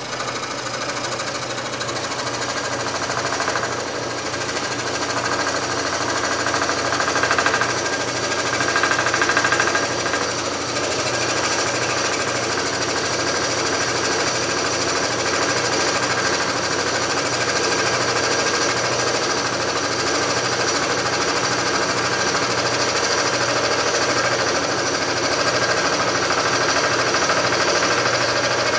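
Scroll saw running at a very slow speed, its number 7 blade cutting lengthwise through a 2-inch-thick board to slice off a thin sheet of veneer. The cut is near the saw's depth capacity, and the saw keeps up a steady mechanical chatter throughout.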